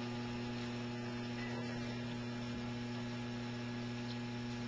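Steady electrical mains hum, a low even buzz that does not change, over faint room noise.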